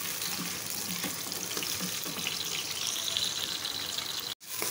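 Sliced onions with whole spices and green chillies sizzling in hot oil in an aluminium pressure cooker, stirred with a wooden spoon: a steady frying hiss. It drops out for an instant near the end.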